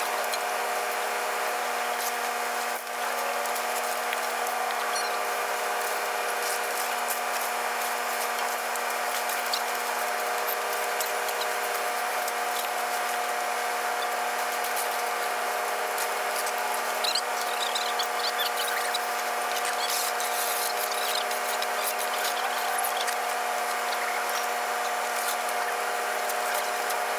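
A machine running steadily, a constant whine made of a few held tones, with faint short squeaks near the middle.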